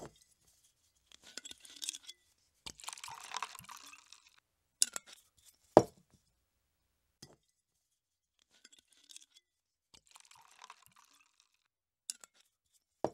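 Wine pouring from a bottle into a wine glass in several short splashing pours, with sharp clinks of glass between them, the loudest about six seconds in.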